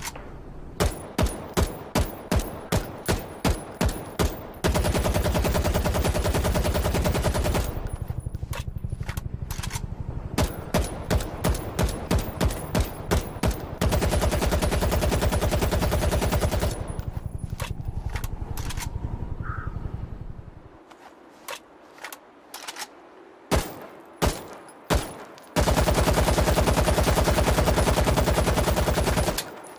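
AK-103 assault rifle firing 7.62×39mm, switching between strings of single shots at about two to three a second and long bursts of fully automatic fire lasting three to four seconds each. Partway through, the firing stops for a few seconds, leaving only quieter clicks and clatter, before a last automatic burst.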